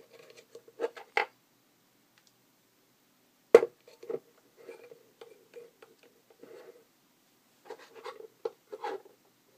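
Handling noises: scattered clicks, scrapes and rustles of hands working with wires, a plastic connector and a metal stepper-motor bracket on a wooden tabletop, with one sharp knock about three and a half seconds in.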